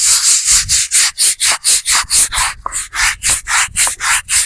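A brush scrubbing the face of a tombstone in quick back-and-forth strokes, about four a second, scouring off built-up grime.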